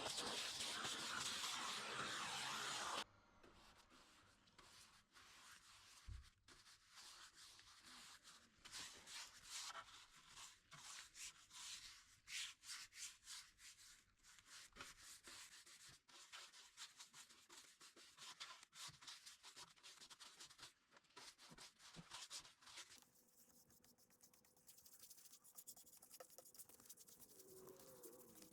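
Faint hand rubbing on a wooden surface, a quick irregular run of short scratchy strokes, after a steady hiss that cuts off suddenly about three seconds in.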